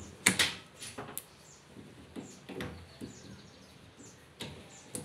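A few sharp knocks and clicks, the loudest just after the start, with faint bird chirps in the background.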